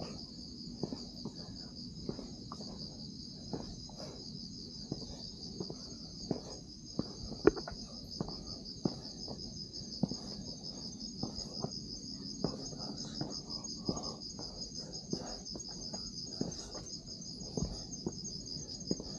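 A steady, high-pitched chorus of night insects trilling, with footsteps on a hiking trail knocking about twice a second underneath.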